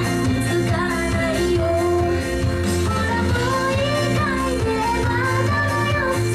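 Recorded pop song playing over a venue's speakers: a sung vocal melody over a steady beat, bass and band backing.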